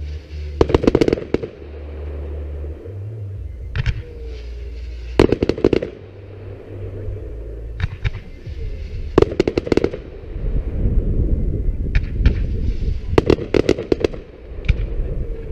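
Fireworks display: quick volleys of sharp crackling bangs from shells bursting, coming in clusters every few seconds over a steady low rumble.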